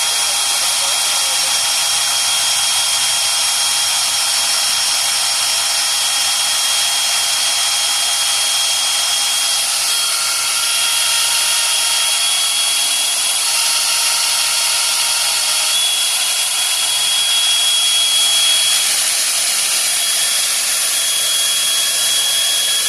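Broach-cutter magnetic drilling machine running with a steady high-pitched whine as its annular cutter bores a hole in metal.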